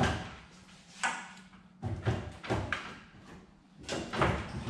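Sheet-steel door of a 1927 Ford Model T touring body being shifted and knocked against the body panels while it is wrestled into position: a series of metallic clunks and rattles, about one a second, the loudest near the end.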